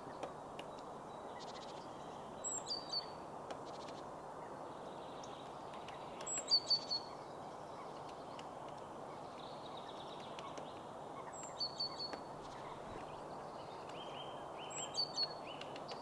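Great spotted woodpecker giving sharp, short 'kix' calls in clusters of three or four, four times, with faint taps of its bill on a pine cone in between. A steady background hiss runs underneath.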